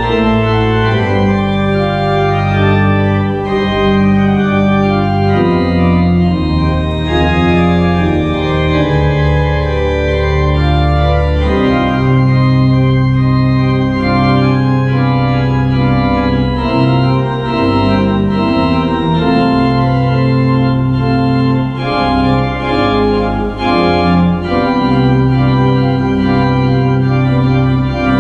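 Church organ playing slow, sustained chords over long-held bass notes that change every few seconds.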